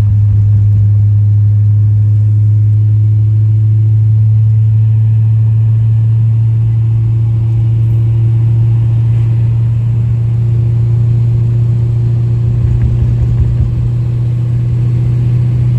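Car engine running at a steady speed: a loud, low drone that holds one pitch, with a little more low rumble late on.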